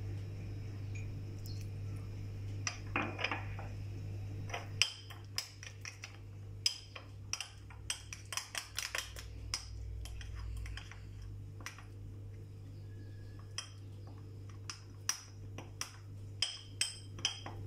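Metal spoon stirring a thick powder paste in a small ceramic dish, clinking and scraping against the dish in irregular taps that begin about five seconds in.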